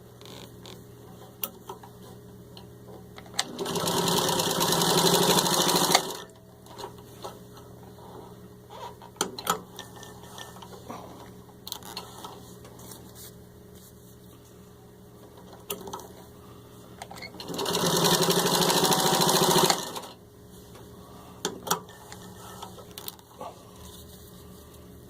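Vintage Singer 15-91 sewing machine stitching through four layers of vinyl upholstery. It runs in two short bursts of about two and a half seconds each, about fourteen seconds apart. Between them there are small scattered clicks.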